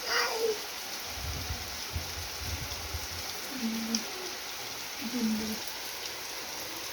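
Steady heavy rain falling, with a short falling call right at the start and two brief low tones midway.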